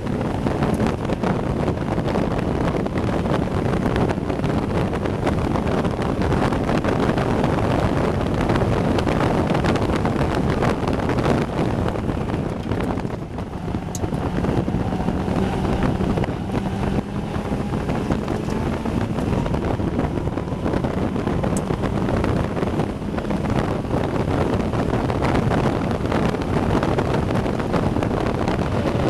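Caterham Seven race car's engine running hard at racing speed, heard onboard under heavy wind noise on the microphone. The sound dips briefly about 13 seconds in as the car slows through a corner, then the engine note climbs as it accelerates again.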